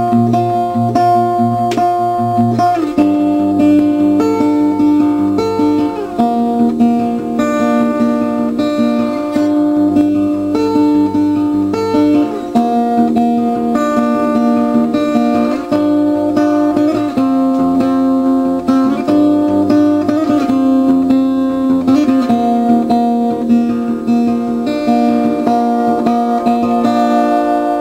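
Background music: an acoustic guitar playing a steady melody of plucked notes.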